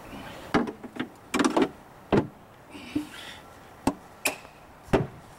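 Engine cover of a Yamaha 40 hp Enduro outboard being pressed down and latched into place: a string of sharp knocks and clacks, about eight of them.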